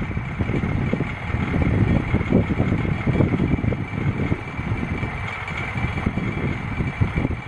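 Engine of a loaded rice-hauling farm vehicle running with an uneven, low chugging, and a steady high whine over it, driving on a muddy road.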